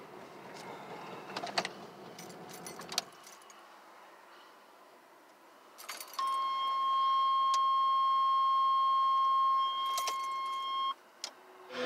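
In a 1983 Buick LeSabre, a low cabin running noise stops about three seconds in. Keys click and jingle, then the dashboard warning buzzer sounds one steady tone for about five seconds and cuts off suddenly.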